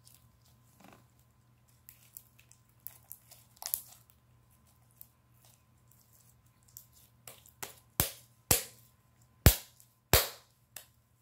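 Homemade glue slime being squeezed and pressed in the hands, popping its trapped air bubbles. Scattered small pops and clicks come first, then a quicker run ending in four loud, sharp pops in the last few seconds.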